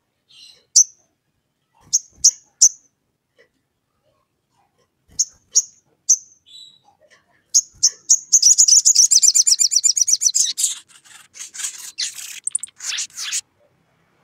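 Olive-backed sunbird calling: sharp, high chips, single or in quick pairs, then about eight seconds in a fast chattering trill lasting a couple of seconds, followed by a few shorter rapid bursts.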